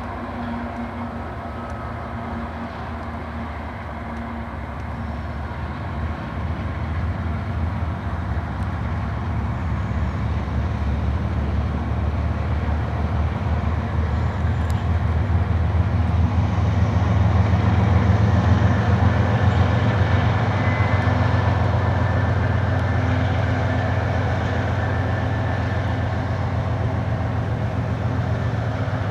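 Two CSX diesel locomotives running as they haul a coal train of hopper cars across a steel girder viaduct. A steady low rumble with a held engine note grows louder to a peak a little past the middle, then eases slightly as the train passes.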